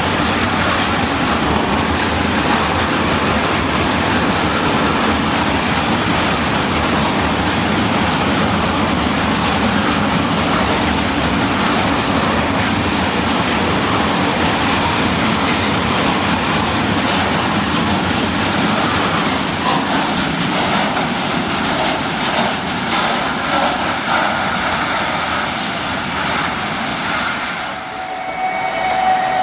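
Long freight train of covered grain hopper wagons rolling past close by: a loud, steady rumble of wheels on rails. It drops away near the end, where a short steady tone sounds.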